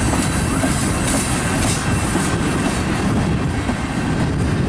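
Freight train's tank cars rolling past at close range: steady rumble of steel wheels on the rails.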